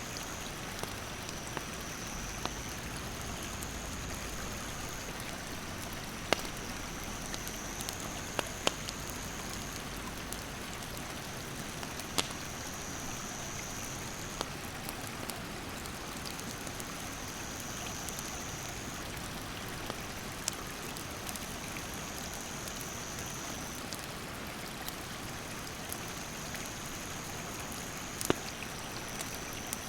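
Rushing stream water with the occasional sharp pop of a wood campfire crackling. A high, steady insect buzz starts and stops every few seconds.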